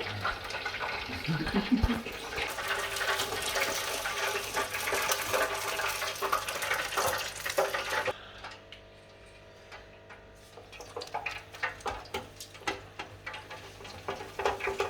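Battered fish deep frying in hot oil, a dense sizzling crackle of bubbling fat. About eight seconds in it drops suddenly to a faint hum, and lighter crackling returns toward the end.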